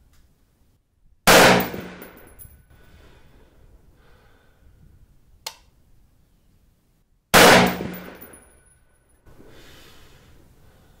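Two rifle shots from an AR-15 carbine, about six seconds apart, each loud and sharp with a long echoing tail. A single sharp click falls between them.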